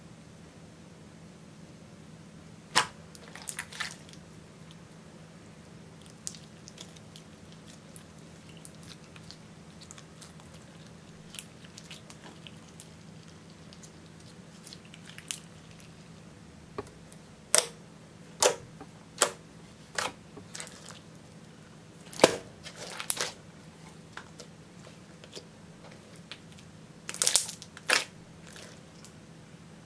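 Clear glitter slime being stretched, folded and squeezed by hand, giving scattered short, sharp sticky clicks and pops, a few early and most bunched in the second half.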